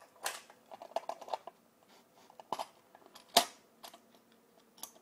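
Light clicks and rattles from hands handling a Dangerous Power G3 paintball marker and its loose parts with the grip frame off, with a sharper click about three and a half seconds in.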